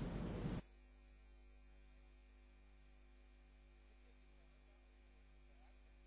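Near silence with a faint steady electrical hum. A short stretch of room noise cuts off abruptly about half a second in.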